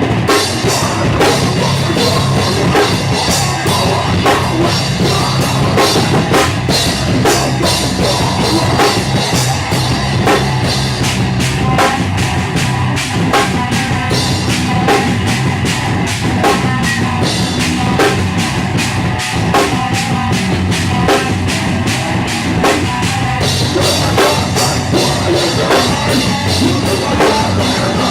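Live rock band playing an instrumental stretch, the drum kit keeping a steady beat with bass drum and cymbals over the band.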